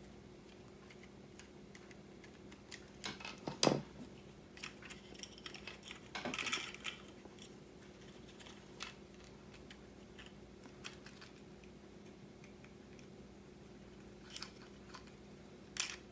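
Small clicks and scrapes of a precision screwdriver and small plastic camera parts being handled while a tiny retaining screw is taken out of a budget action camera's lens assembly, with a sharper click about three and a half seconds in and a brief scrape about six seconds in, over a faint steady hum.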